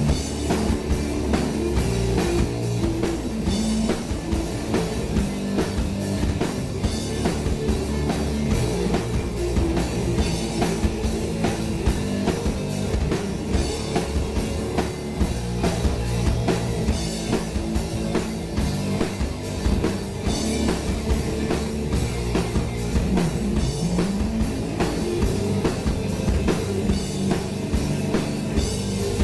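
Heavy metal band playing live on electric guitars, bass guitar and drum kit, with fast, dense drumming and no vocals.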